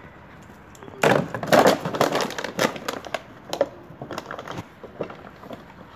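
Crunching, crinkling noises, dense and loud from about a second in until about three seconds in, then lighter and scattered.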